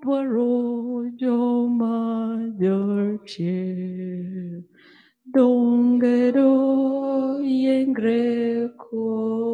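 A woman singing slowly without accompaniment into a microphone: a line of long, held notes, with a short break about five seconds in.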